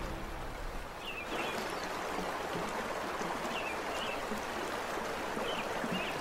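Rushing white-water river, a steady rush that comes up about a second in, with a few short high chirps over it.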